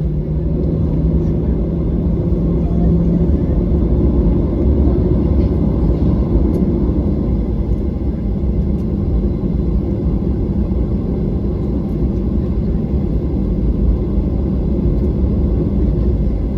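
Cabin noise inside a Boeing 737-800 taxiing: a steady low rumble from its CFM56-7B engines at taxi thrust and the rolling airframe, with a low hum that fades about three seconds in.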